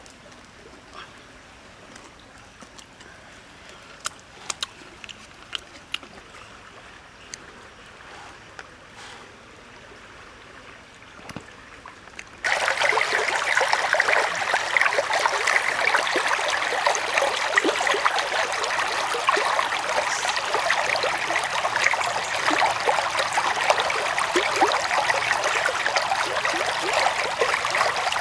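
A few light clicks and taps over a quiet background, then about twelve seconds in a sudden cut to the loud, steady rush of a flowing stream.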